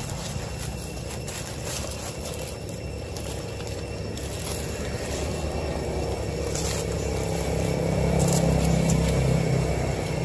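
A steady low rumble that grows louder in the second half, with faint scraping and crackling of dry leaf litter as a monkey and a puppy wrestle on it.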